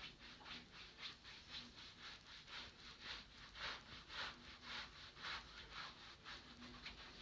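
Faint, rhythmic friction of a masseur's hands rubbing over skin during a massage, about two strokes a second with lighter ones in between.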